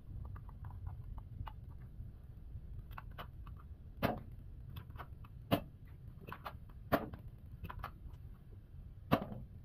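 Plastic toy pistol being loaded and fired: a run of small plastic clicks, then four sharp shots of plastic bullets roughly a second and a half apart, with lighter clicks of the action between them.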